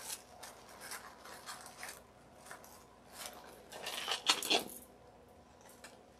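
Light rustling and scratching as crinkled paper coffee-filter wings and a strand of craft pearls are handled on a tabletop, with a louder, brief scratchy rustle about four seconds in.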